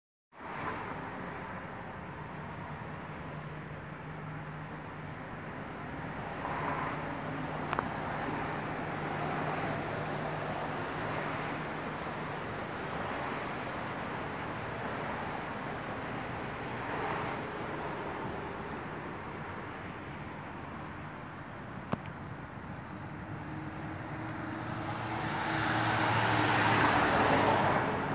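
Steady, high-pitched insect chirring throughout. Near the end a vehicle passes, swelling louder for a few seconds.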